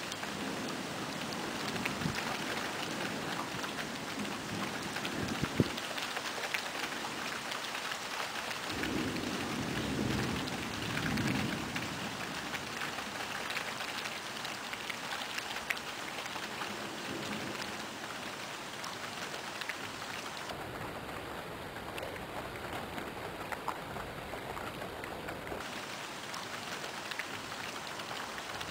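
Steady rain falling, with a few sharp drop hits close by. A low rumble of thunder swells and fades about nine to twelve seconds in.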